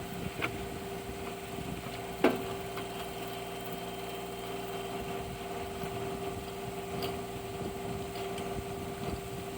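An engine idling steadily, with a short sharp knock a little over two seconds in.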